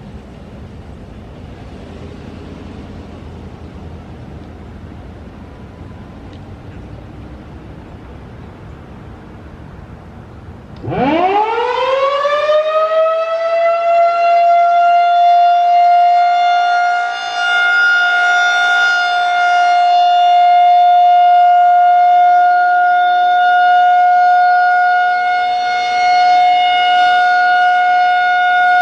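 Low background rumble, then a Federal Signal 2001-130 outdoor warning siren starts up about eleven seconds in. Its pitch winds up quickly and settles into one loud, steady tone: the steady alert signal of a siren test.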